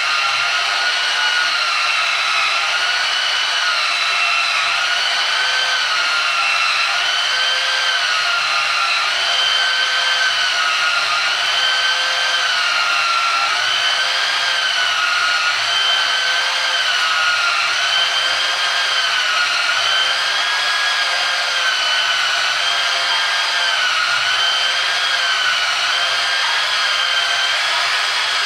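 Bauer 1678E-B portable metal-cutting bandsaw with a fine 24-tooth blade, at turned-down speed, cutting through round aluminum bar lubricated with oil. A steady motor whine that wavers up and down in pitch about every two seconds.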